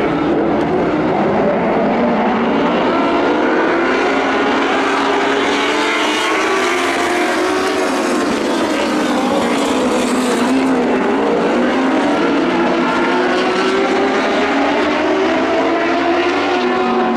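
Several lightning sprint cars racing on a dirt oval. Their engines overlap and rise and fall in pitch as they go around the track.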